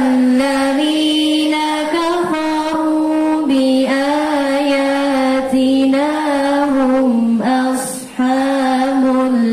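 A group of boys reciting the Quran together in a melodic chant, one voice line in unison with long held notes and small melodic turns. They pause briefly for breath about eight seconds in.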